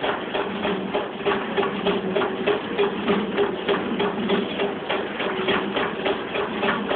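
Windmill burr millstones running while milling spelt flour: a rapid, even clatter of the grain feed, several clicks a second, over a steady hum from the turning stones.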